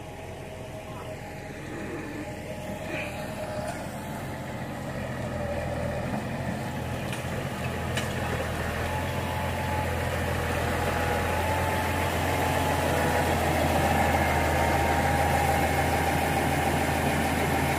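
Farm tractor's diesel engine running steadily, growing louder throughout as it draws closer.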